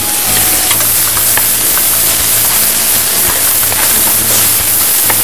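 Chopped onion and garlic sizzling in olive oil in a pan as they are sautéed until soft and fragrant, stirred with a wooden spatula. The steady sizzle is broken by a few light clicks.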